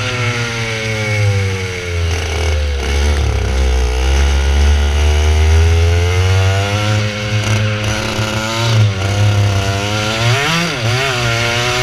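Air-cooled, direct-drive TKM 125cc two-stroke kart engine heard onboard at racing speed. The revs fall away over the first few seconds, climb steadily as it accelerates, then dip and surge again near the end.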